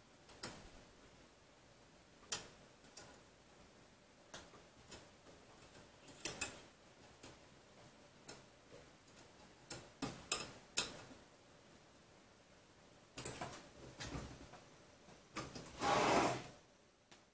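Scattered light clicks and taps of small tools and metal printer parts being handled, as when tightening coupler set screws, with a louder noisy stretch lasting about a second near the end.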